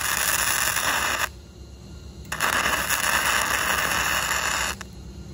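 MIG welding arc crackling steadily in two tack welds, fixing quarter-inch-wall square steel tubing to a steel table. The first tack stops about a second in; the second starts about two and a half seconds in and runs for roughly two and a half seconds.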